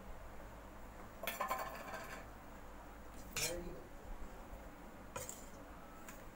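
Steel utensils clinking and scraping against a stainless steel mixing bowl as grated coconut is emptied in and stirred into steamed ragi flour: a quick run of clinks, then two single strokes a couple of seconds apart.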